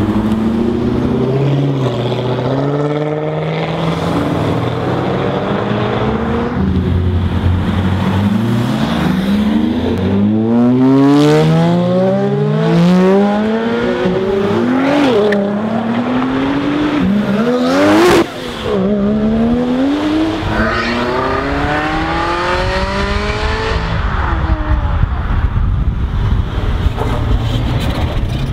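Sports car engines (a Chevrolet Corvette, then red Ferraris) accelerating hard away, each rev climbing in pitch and dropping back at every upshift, again and again. There is a single sharp crack about eighteen seconds in.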